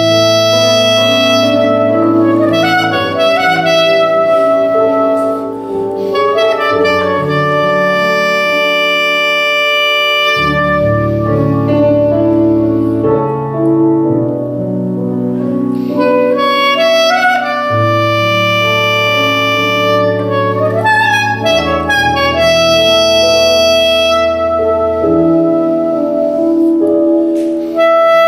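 Clarinet playing a slow melody of long held notes, with quick runs of notes about three seconds in and again about twenty seconds in, over a low chordal accompaniment that changes every few seconds.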